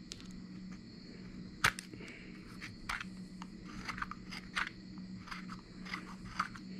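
A carving knife slicing thin shavings from a cherry wood spoon during finishing passes. It makes a quiet run of short, crisp cuts at irregular intervals, the sharpest about a second and a half in.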